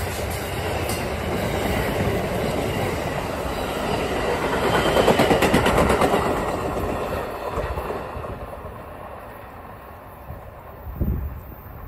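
Amtrak passenger train's stainless-steel cars going by, steel wheels clattering rapidly over the rail joints, loudest as the last car, a baggage-dormitory car, passes about five seconds in. The noise then fades steadily as the train pulls away, with a brief low thump near the end.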